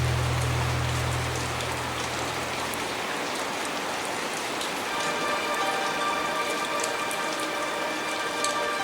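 Steady rain falling, as a rain sound effect within the song, with a low held note fading out over the first few seconds and a sustained chord of steady tones coming in about five seconds in.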